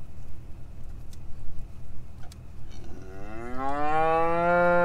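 A cow mooing once, a long low call that starts about three seconds in, rises in pitch, then holds steady before cutting off.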